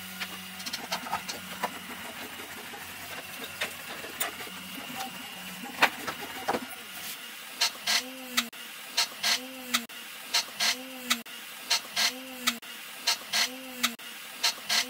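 Scattered light clicks and knocks of a screwdriver and 3D-printed plastic airframe parts being handled on a workbench. From about halfway a regular repeating beat takes over: a short rising-and-falling tone with a sharp tick, about once every three-quarters of a second.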